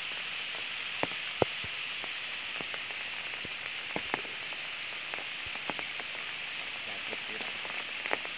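Rain falling: a steady hiss with scattered sharp drips.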